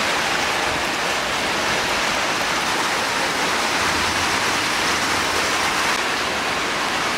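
Large pot of soup boiling over a fire, a steady, even watery hiss.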